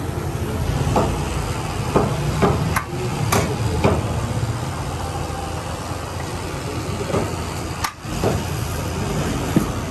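A ladle clinking against a large metal cooking pot and serving bowls: a string of sharp, irregular clinks while curry is dished out. Underneath runs a steady low engine rumble.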